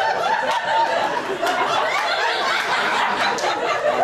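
Theatre audience laughing, a steady wash of many people's laughter and chuckles.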